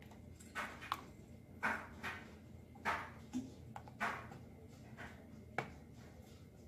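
Silicone spatula stirring thick atole in a stainless-steel saucepan: soft swishing scrapes against the pan about once or twice a second, with one sharper tap near the end.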